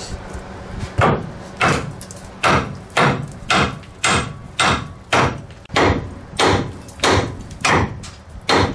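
A hammer striking the steel steering knuckle of a 1996 Chevy K2500 4x4 in a steady series of metal-on-metal blows, about two a second, starting about a second in, each with a short ring. The blows shock the tapered upper ball joint stud loose from the knuckle.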